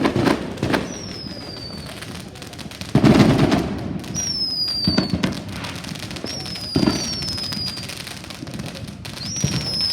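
Fireworks going off: about five bangs with crackling, the loudest about three seconds in, and several short high whistles falling in pitch between them.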